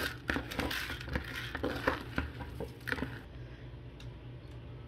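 Soaked long-grain rice pouring from a cup into a pot, the wet grains pattering and clicking against the pot and meat for about three seconds, then only a few light taps.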